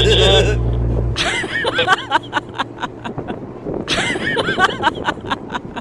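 A loud steady low hum that cuts off about a second in, followed by two short bouts of snickering laughter.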